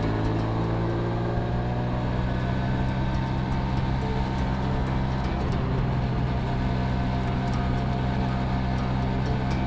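An IWL Berlin scooter's single-cylinder two-stroke engine running steadily at cruising speed, heard from on board the moving scooter.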